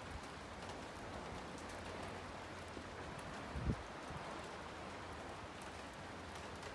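Steady light rain falling, a soft even patter with faint drop ticks. A short low thump about halfway through.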